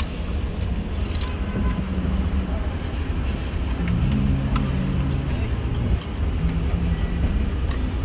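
Steady low rumble of car and traffic noise, with faint voices in the background and a few light clicks.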